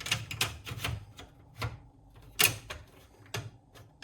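Irregular clicks and knocks of parts being handled and fitted into an HP Z820 workstation's case, about a dozen sharp taps, the loudest about two and a half seconds in.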